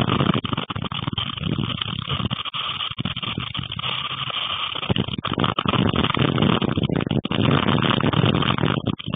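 Strong gusting storm wind buffeting the microphone, a loud rough rumble that eases briefly in the middle and then picks up again.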